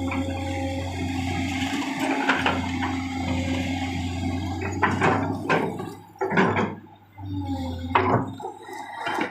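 Backhoe loader's diesel engine running steadily under a rushing noise, with several louder surges and brief drops in the second half.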